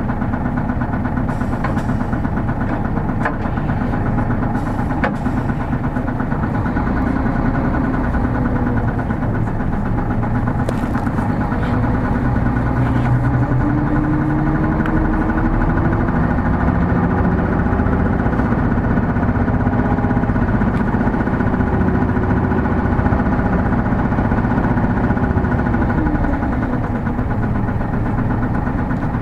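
Hino Blue Ribbon City Hybrid diesel-hybrid city bus heard from inside the cabin while driving: a steady engine and road rumble, with a rising pitch through the middle as it picks up speed that falls away near the end. A few light clicks in the first half.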